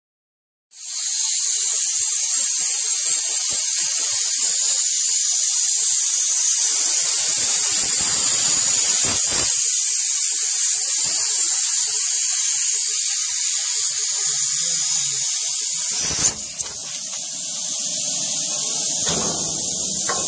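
Plasma cutter torch hissing steadily as it cuts through a steam locomotive's boiler tubes at the tube plate, with light crackling under the hiss. It starts about a second in. A sharp click comes about three-quarters of the way through, after which the hiss goes on a little quieter.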